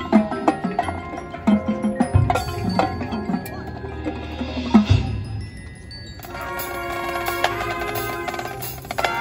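Marching band field-show music led by the front ensemble's mallet percussion (marimbas and bells) playing quick ringing notes, with low booming hits about two seconds in and again about five seconds in. After a thinner moment, held chords with mallet notes over them come in about six seconds in.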